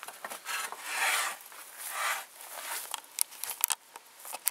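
Scraping and rubbing from a board and tools being handled on a wooden workbench: two long scrapes about a second and two seconds in, then a few light clicks and knocks.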